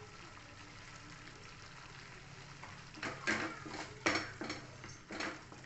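Thick masala gravy frying with a faint sizzle in a kadhai. From about three seconds in, a wooden spatula stirs it in quick scraping strokes against the pan, roughly two a second.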